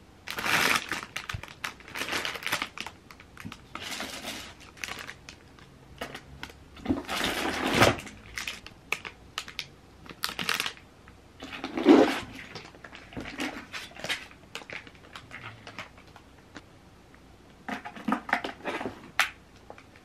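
Plastic food packaging rustling and crinkling as grocery items are lifted out and handled, in irregular bursts with scattered clicks and taps.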